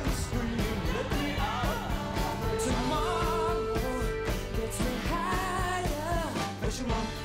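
Background song: a singing voice over drums and a steady beat.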